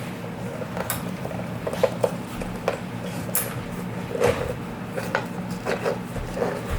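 Hands working a new rubber inner tube into a scooter tire: scattered small clicks, knocks and rubbing.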